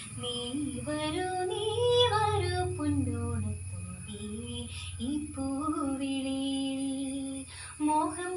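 A girl singing a Malayalam Onam song (Onappattu), a slow melody with gliding notes and one long held note about two-thirds of the way through.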